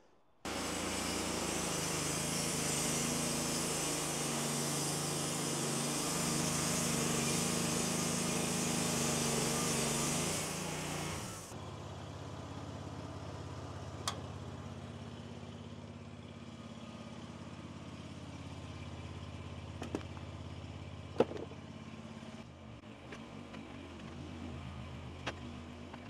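EZ Boardwalk 40 portable bandsaw mill cutting through a log: the engine runs steadily under load beneath the loud hiss of the band blade in the wood. About eleven seconds in, the cutting hiss stops abruptly and the engine keeps running more quietly, with a few sharp knocks.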